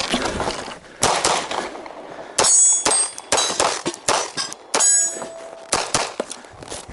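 Pistol shots fired in quick strings during an IPSC practical shooting stage. Struck steel plate targets ring with a high clang after the shots about two and a half and five seconds in.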